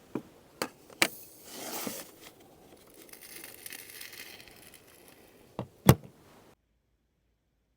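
Crinkling and rustling from food being handled for cooking, with a few sharp knocks early on and two loud knocks near the end, then the sound cuts off abruptly.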